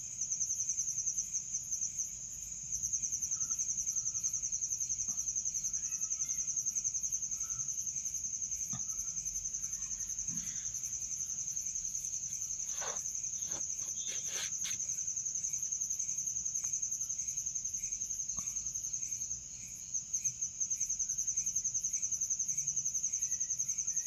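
A cricket trilling, a steady high, rapidly pulsing chirr that falters near the start and breaks off for about a second near the end, with a few faint clicks around the middle.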